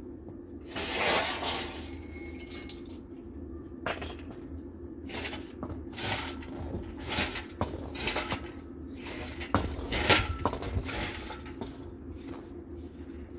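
Metal parts and tools clanking and rattling during work to get a car engine out. There is a longer scraping clatter about a second in, then a run of irregular sharp clinks and knocks with brief metallic ringing, loudest near the ten-second mark, over a steady low hum.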